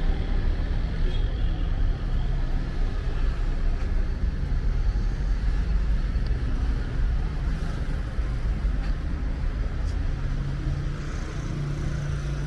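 City street traffic: car engines running and tyre noise as a continuous rumble, with one vehicle's engine hum growing stronger near the end.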